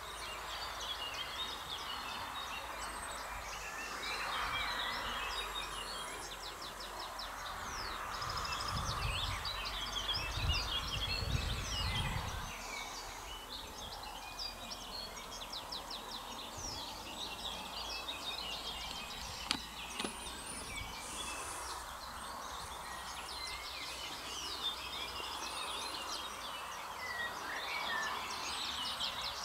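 Several songbirds singing and chirping over a steady outdoor background hiss. A low rumble comes in for about four seconds near the middle, and there is one sharp click later on.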